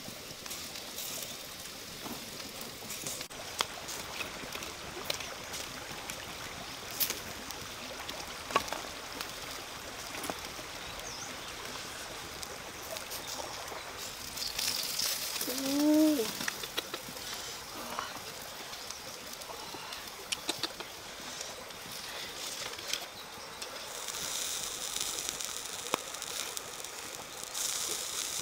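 Wood fire crackling under beef ribs grilling over the embers, with scattered sharp pops and a steady faint sizzle. About halfway through, as the rack is lifted and turned, the sizzle swells briefly and one short pitched call rises and falls, the loudest sound.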